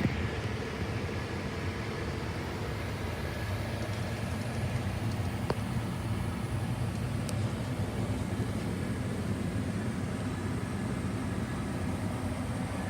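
Furnace running: a steady low rumble and hum, with a couple of faint clicks.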